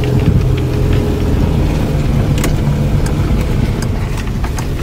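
Car engine running and tyres rumbling over a wet cobblestone street, heard from inside the car's cabin, with a few scattered sharp ticks.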